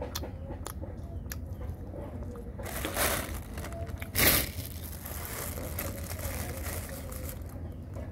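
Plastic bag of drink crinkling and rustling as it is picked up and handled, with a loud rustle about four seconds in. A few sharp clicks come in the first second or so.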